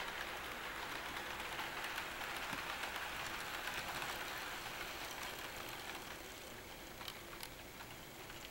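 HO scale model hyrail truck with a Stanton power drive rolling along model track and pulling a string of freight cars. The metal wheels make a steady fine rattle and clatter on the rails, easing a little in the second half, with two sharp clicks near the end.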